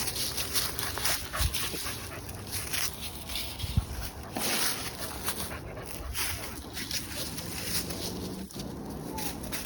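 A dog panting and whimpering softly, over irregular rustling and crunching of footsteps through debris.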